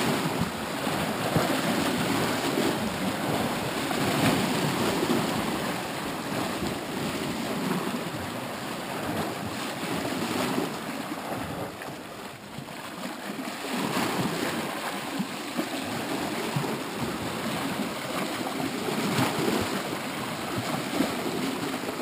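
Small ocean waves lapping and splashing against shoreline rocks: a continuous wash of water that swells and eases every few seconds.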